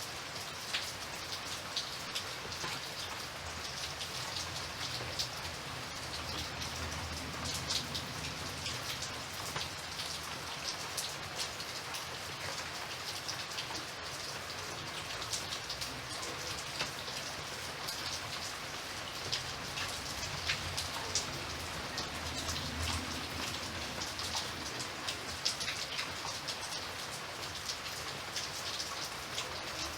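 Steady rain, an even hiss crossed by many separate drops ticking sharply on a surface.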